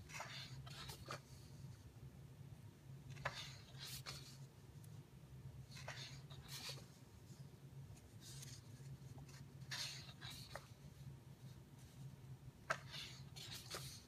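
Paper pages of a large hardcover book being turned and smoothed by hand: short swishing rustles about six times, every two to three seconds, over a faint steady hum.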